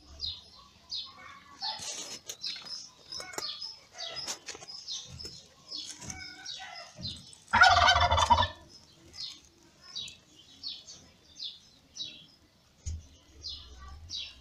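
Short, high chirps repeating about once or twice a second. About halfway through comes one louder pitched cry lasting about a second, a newborn kitten crying as it nurses.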